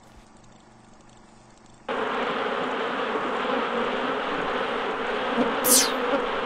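A swarm of bees buzzing, starting suddenly about two seconds in after near silence and holding steady. A short falling whistle cuts through near the end.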